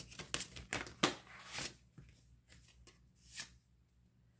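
Tarot deck being shuffled by hand: a quick run of card flicks and rustles over the first two seconds, then a couple of single card snaps.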